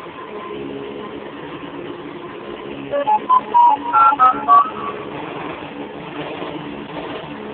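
Hoover Convertible U4389 upright vacuum cleaner running steadily, its motor smooth after recent motor work. About three seconds in, a short run of loud beeping notes at shifting pitch sounds over it for under two seconds.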